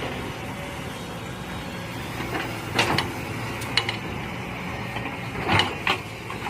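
Mini excavator running steadily while digging, with several sharp knocks from its working gear, clustered about three seconds in and again near the end.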